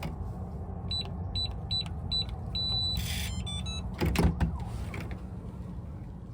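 Electronic keypad door lock being operated: four short beeps as keys are pressed, a longer confirming beep, then a brief motor whir as the latch drives and a quick stepped chime tune signalling it has unlocked. A couple of knocks follow, a little after four seconds in.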